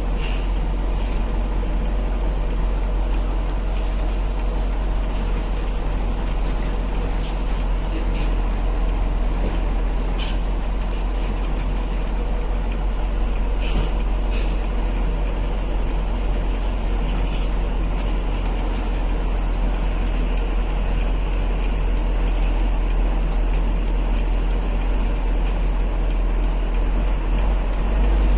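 Heavy truck driving along, its engine and road noise making a steady low rumble, with a faint regular ticking throughout.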